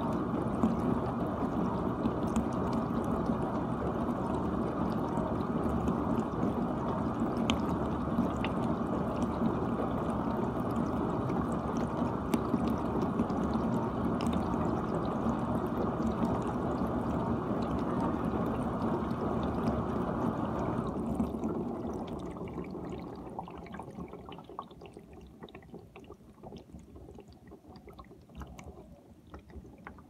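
GE dishwasher washing: water spraying and sloshing steadily around the tub. About two-thirds of the way through the spray dies away over a few seconds, leaving faint trickling and drips.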